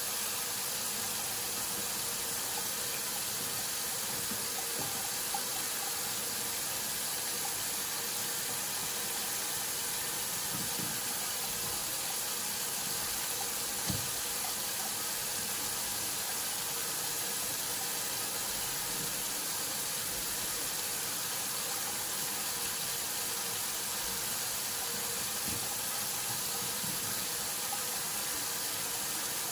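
Kitchen faucet running steadily into a stainless steel sink, the stream splashing onto fish lying in it. Two faint knocks, about five seconds in and again about fourteen seconds in.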